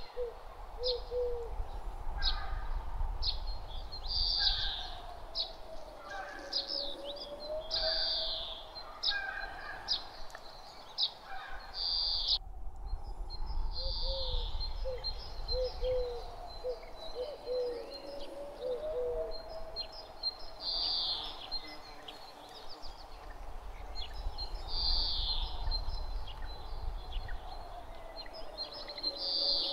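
Nature ambience: birds chirping in short repeated calls, with runs of short low hooting notes. Under them is a wind whistle that slowly rises and falls in pitch over a low wind rumble.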